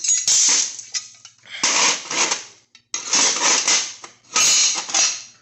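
Hand tool rasping on a steel tube in about four long strokes with short pauses between, shaping a bevel into the tube's end.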